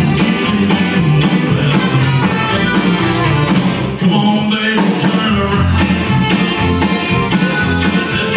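Live Tex-Mex band playing an upbeat song: drum kit keeping a steady beat under electric guitar, button accordion, keyboard and trumpet. The level dips briefly about four seconds in.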